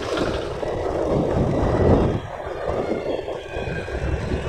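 Riding noise from a two-wheeler on the move: wind on the microphone mixed with engine and tyre noise. The noise is loudest for the first two seconds, then drops a little.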